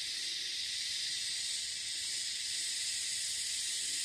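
Steady high-pitched hiss of an insect chorus, unchanging throughout.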